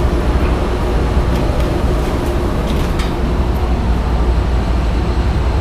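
Industrial laundry machinery running: a steady low rumble and hum, with a few faint light clicks.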